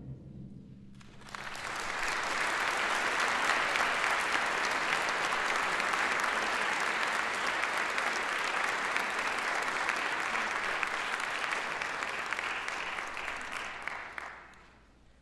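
Audience applauding after a concert band piece, starting about a second in, holding steady and dying away near the end.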